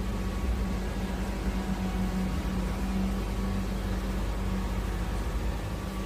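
PowerPac PPV636 portable electric clothes dryer running, its fan blowing air into the fabric cover: a steady hum with an even airy hiss.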